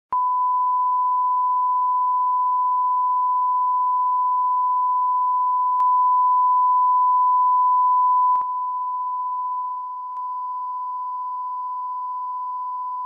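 Broadcast test tone heard with colour bars: one steady, unbroken, high-pitched beep. It is the station's reference signal, a sign that programming has dropped out in a transmission error. Its loudness steps up a little about six seconds in and down again at about eight and a half seconds, with faint clicks at the changes.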